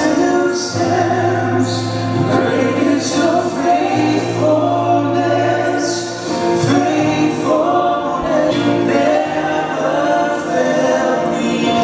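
Congregational worship music: a band with a choir of singers performing a gospel-style song, over sustained bass notes.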